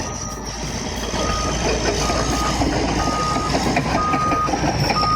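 Heavy mining machinery running with a backup alarm beeping about once a second, each beep about half a second long, over a steady high whine.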